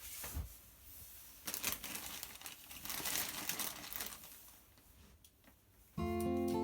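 Crinkling, rustling handling noise with scattered small clicks, louder in the middle and fading. Acoustic guitar music starts near the end.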